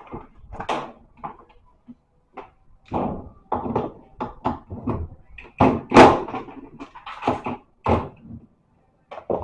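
Irregular knocks, clunks and rattles of parts and tools being handled while a washing-machine motor is fitted. There is no motor running.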